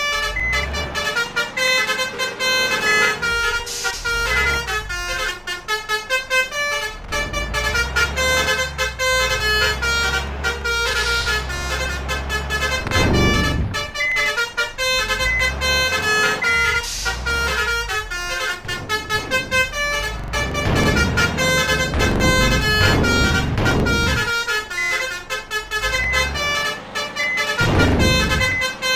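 Basuri musical air horns playing fast 'telolet' tunes, note after note, over a low engine rumble, with a few loud rushing surges.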